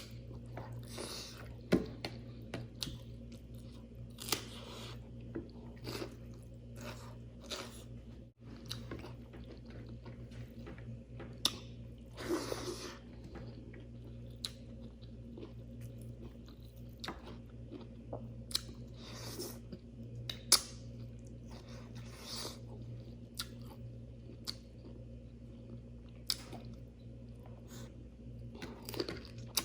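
Close-miked eating sounds: chewing and mouth clicks of a mouthful of rice and curry, with irregular crisp crunches. A steady low hum runs underneath.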